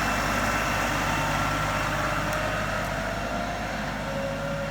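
LS XR 3135 compact tractor's diesel engine running steadily, easing off slightly toward the end.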